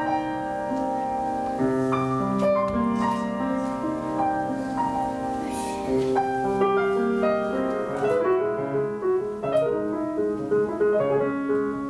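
Piano playing a classical-style piece: a flowing melody over chords, with many notes held and ringing.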